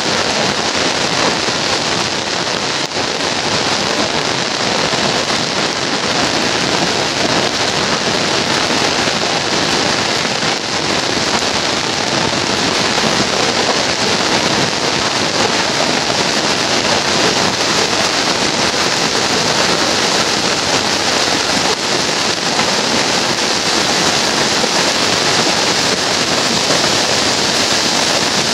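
Heavy rain falling steadily: a loud, even, dense hiss of countless drops.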